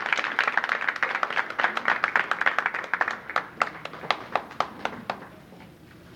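Audience applause: many people clapping, thinning to a few scattered claps about three seconds in and dying away after about five seconds.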